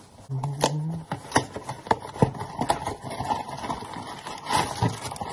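Small cardboard mystery boxes being handled and opened, with a string of irregular sharp clicks and knocks. A brief hummed voice comes about half a second in.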